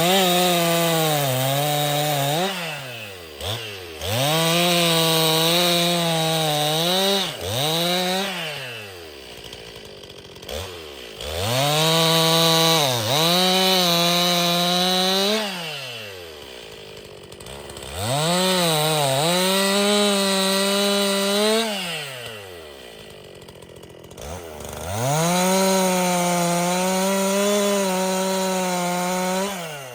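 Stihl MS261 C-M two-stroke chainsaw cutting firewood: it revs to full throttle and holds there for about three to five seconds per cut, the pitch sagging a little as the chain bites, then drops back to idle between cuts. This happens five times.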